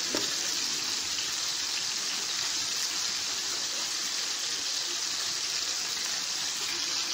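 Chicken pieces frying in oil in a frying pan over a lowered gas flame: a steady sizzle.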